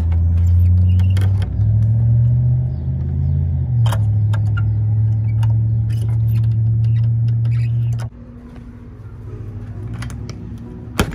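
A motor runs with a loud, steady low hum that shifts pitch slightly a couple of times, then cuts off abruptly about eight seconds in. A sharp click follows near the end.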